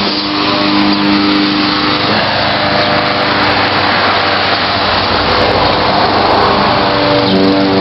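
A small engine running steadily under a thick layer of noise; its steady hum fades about two seconds in and comes back strongly near the end.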